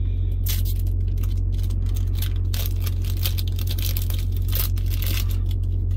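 A foil trading-card booster pack being torn open and crinkled, a run of sharp crackles. Under it runs a steady low hum from the refrigerated trailer's reefer unit.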